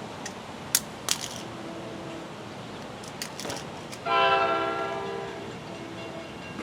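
A passenger train locomotive's horn sounds one blast about four seconds in: several steady notes together that start suddenly and fade over a second or so. A few sharp clicks come before it.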